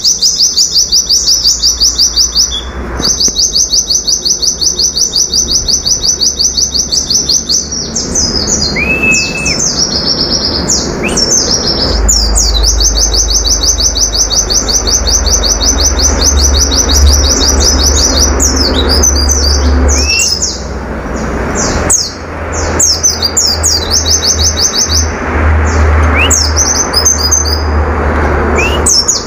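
White-eye (pleci) singing its rapid 'nembak' song: long, very fast runs of high repeated notes with brief breaks, and a few higher slurred notes between the runs. A low rumble runs underneath.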